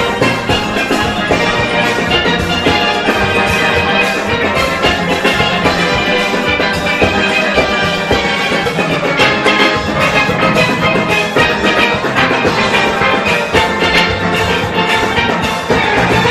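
Full steel band playing a fast, dense ensemble of many steelpans, from bass pans to high pans, with drums and percussion keeping the beat underneath.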